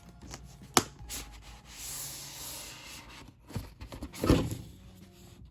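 Cardboard box sliding out of its cardboard sleeve with a soft rubbing hiss, handled by hand. A sharp click comes under a second in and a dull knock about four seconds in.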